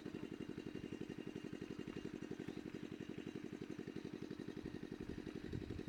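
A small engine running steadily, a low even putter of about a dozen beats a second.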